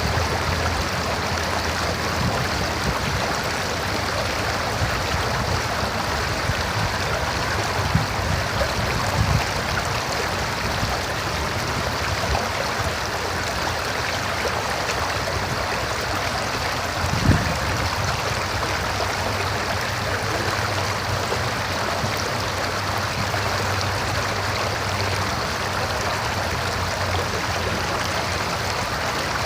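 A river flowing: steady rushing and gurgling water, with a few brief low thumps, the strongest about 17 seconds in.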